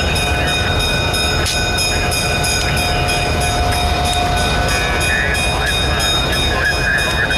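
Streamlined EMD E5 diesel locomotive rolling slowly past with its engine running, a steady rumble with several high steady tones and a fast, even clicking over it.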